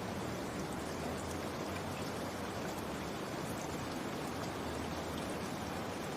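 Steady rain falling, a constant even hiss with scattered faint drop ticks.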